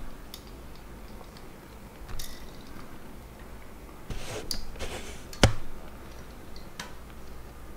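Light metallic clicks and scrapes of hand work on a dial-indicator setup as it is loosened on the exhaust cam follower. One sharp metallic click about five and a half seconds in is the loudest sound.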